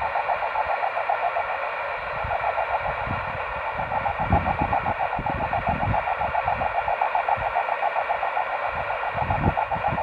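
Received microwave signal from a transceiver speaker: a rough, rapidly fluttering tone over hiss. This is the auroral-like sound of a signal scattered off rain clouds.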